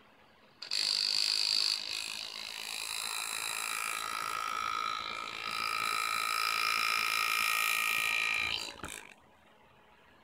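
Pneumatic hand-engraving handpiece running under foot-pedal air control, driving a graver through a cut in a metal plate: a steady high buzz with an airy hiss. It starts suddenly about a second in, its pitch shifts slightly midway, and it cuts off near the end.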